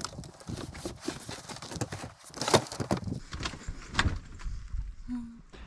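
Foam mattress cushions being laid and pushed onto a wooden slatted pull-out bed frame: an uneven run of soft thumps, knocks and rustling, with sharper knocks about two and a half and four seconds in.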